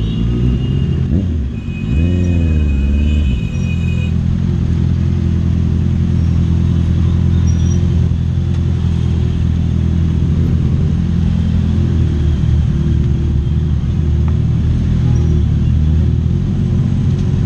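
Honda CBR650R's inline-four engine running at low speed in stop-and-go traffic, with a brief rev that rises and falls about two seconds in. Vehicle horns sound during the first few seconds.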